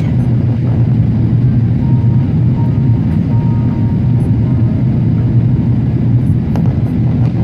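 Steady low rumble of jet airliner cabin noise, engines and airflow heard from a window seat, on the descent toward landing.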